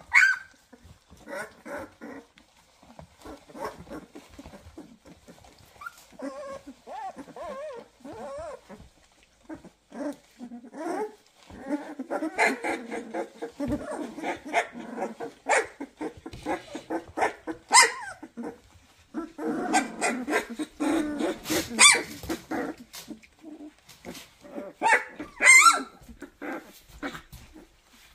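Young Vizsla puppies, about two and a half weeks old, making a long run of small whines and squeaks, with a few louder high yelps in the second half.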